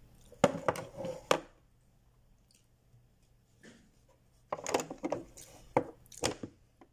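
Knocks and rustling from a black lunch box with a red tray being handled, in two short bursts about four seconds apart.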